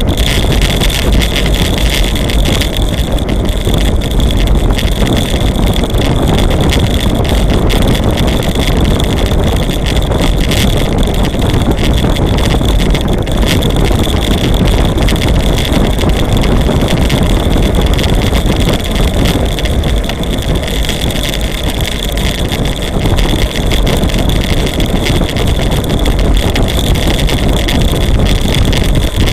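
Wind rushing over the microphone of a camera on a bicycle ridden at speed, with a steady low rumble from the road and a constant high whine underneath.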